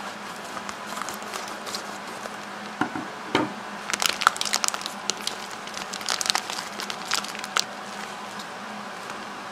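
Thin vacuum-sealed plastic bag being handled and peeled off a slab of dried mullet roe, crinkling and crackling in a string of sharp bursts, densest in the middle. A single dull knock comes about three seconds in.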